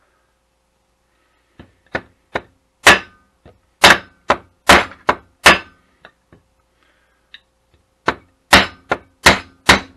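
Hammer blows on a deck screw used as a punch, driving the built-in spindle motor out of a Seagate hard drive's aluminum housing. A run of sharp knocks about two a second, some light and some hard, with a pause of about two seconds after the first run before the hard strikes start again.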